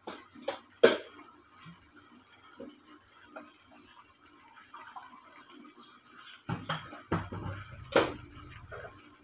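Kitchen clatter: a few sharp clicks and knocks of utensils and containers, the loudest about a second in and another near the end, over a faint steady hiss.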